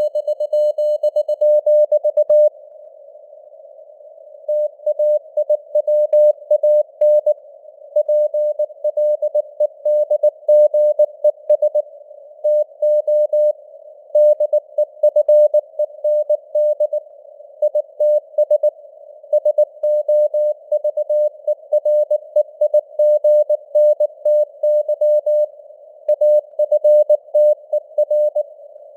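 Morse code (CW) sent at 19 words per minute as a keyed tone of about 600 Hz, dots and dashes over a narrow band of simulated radio hiss. About two seconds in, the keying stops for a two-second gap, leaving only the hiss, then carries on.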